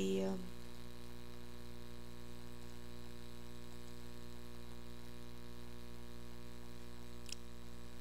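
Steady electrical mains hum picked up by the recording microphone, a ladder of even, unchanging tones with faint hiss. A faint click sounds near the end.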